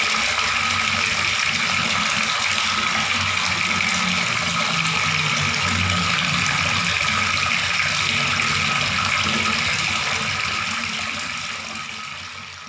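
Water running steadily from a tap, a continuous splashing stream, fading out over the last couple of seconds.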